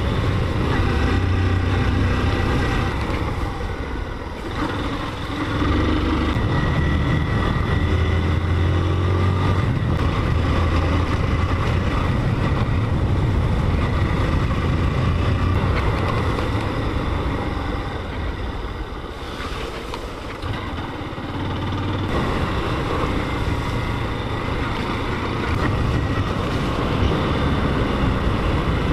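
Motorcycle engine running while riding, with wind rushing over the microphone. The engine note drops back twice, about four seconds in and again around twenty seconds, then picks up again.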